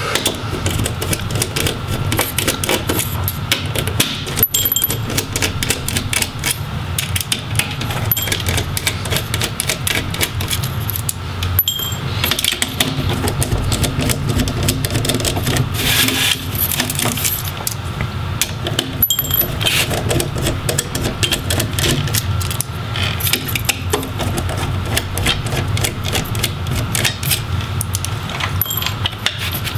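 Repeated light clicks and metallic clinks of a screwdriver and small screws while laptop display hinges are unscrewed, over a steady low hum.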